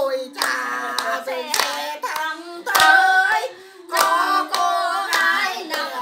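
A voice singing a song while a small group claps along by hand, about two claps a second.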